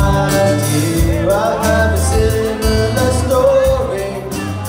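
Live folk-punk band playing a song, with acoustic and electric guitars, bass and drums, in an instrumental stretch between sung lines. The melody line slides up and down over steady bass notes and drum hits.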